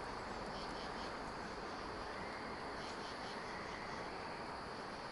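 Faint, steady chorus of katydids.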